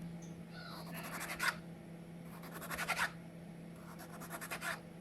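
Three bursts of quick scraping, a metal utensil rasping against a pan or baking tray, over a steady low hum; fish that has stuck to the tray is being scraped loose.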